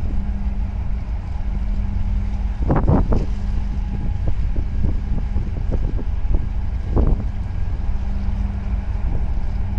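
A steady low engine drone from a boat, with a hum, under wind buffeting the microphone. Louder gusts come about three seconds in and again near seven seconds.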